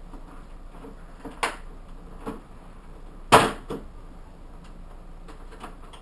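Plastic clips of a monitor's front bezel snapping loose as the bezel is pried up by hand: two sharp snaps about a second and a half and three seconds in, the second the loudest, with a few fainter clicks around them.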